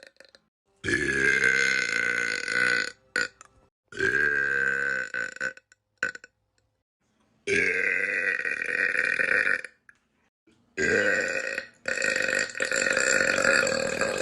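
A boy burping: four long belches one after another, each lasting about two to three seconds, with short silent gaps between them.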